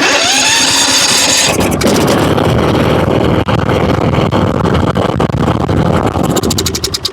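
Kohler Courage engine on a riding lawn mower cranked by its electric starter with a rising whine. It catches about a second and a half in and runs steadily, then begins to slow near the end. It starts readily now that a blockage has been cleared from the fuel system.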